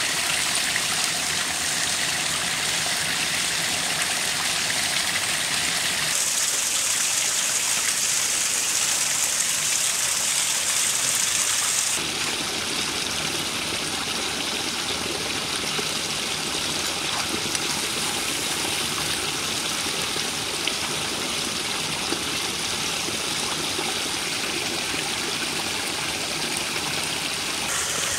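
A forest stream and small waterfall running, a steady wash of water that changes in tone abruptly twice, about six and twelve seconds in.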